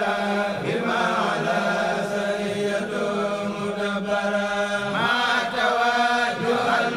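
Arabic religious verse being chanted: a held low note runs steadily beneath a melodic vocal line that bends and shifts about half a second in and again near five seconds.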